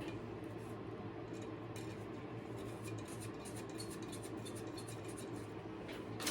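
Faint light clicks and scratches of steel spokes being handled and threaded through the hub and rim while lacing a bicycle wheel, over a steady low hum.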